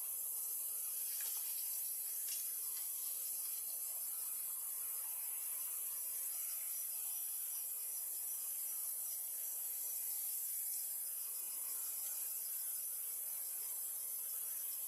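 Steady high-pitched hiss with a few faint clicks about one and two seconds in.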